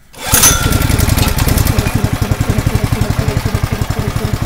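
Honda GX160 single-cylinder engine on an air compressor, pull-started cold without choke or throttle after sitting about three days. It catches at once and settles into a steady, very slow idle.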